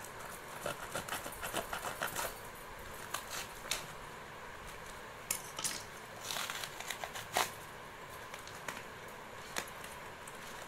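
Small cardboard shipping box being cut with a knife and torn open by hand: irregular crackling and ripping of cardboard in several short spells.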